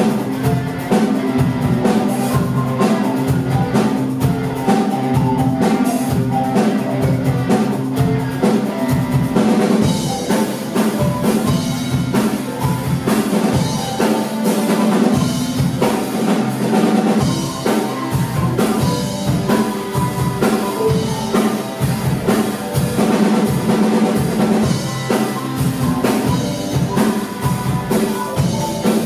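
Live rock cover played by a school ensemble of Orff mallet instruments, with electric guitar and a drum kit keeping a steady driving beat. The drumming grows denser about ten seconds in.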